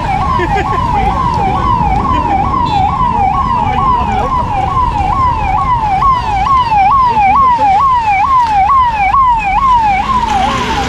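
Emergency vehicle siren on a fast yelp, its pitch sweeping up and down about three times a second, over a steady low rumble of traffic.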